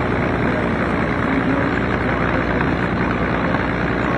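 Steady drone of small propeller race planes' engines, heard under a dense, even wash of noise.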